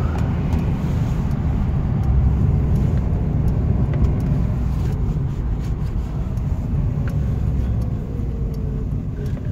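Alfa Romeo Spider Veloce's 2-litre twin-cam four-cylinder engine and road noise heard from inside the open-top cabin while driving: a steady low drone. Near the end a faint whine falls in pitch.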